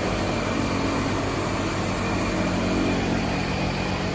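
Steady low mechanical hum under an even background noise from an unseen machine, with no sudden sounds.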